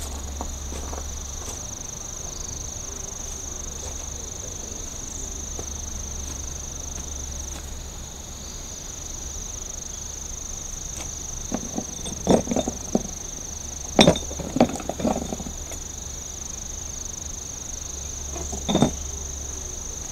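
Crickets trilling in a steady, high, unbroken chorus. A few knocks and a sharp click come through it past the middle, and one more knock near the end.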